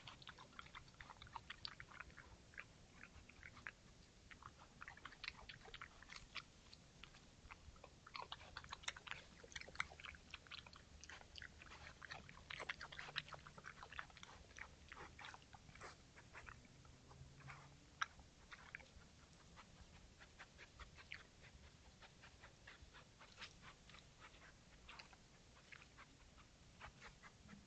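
A badger chewing and crunching food as it forages: a faint, irregular run of quick crunches and clicks, busiest in the middle and thinning out towards the end.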